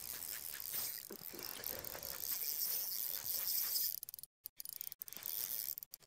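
Fishing reel being cranked: a steady mechanical whirr with light clicking, cut by a few short dead gaps near the end.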